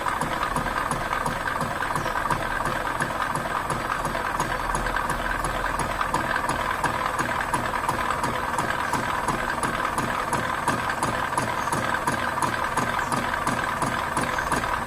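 An engine running steadily at idle, with an even hiss over it throughout.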